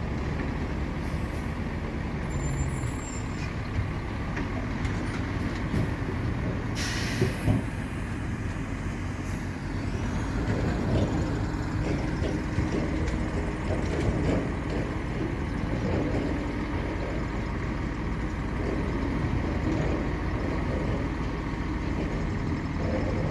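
Heavy diesel construction machinery running steadily, with a short sharp hiss of compressed air about seven seconds in, typical of a truck's air brake, and scattered knocks later on.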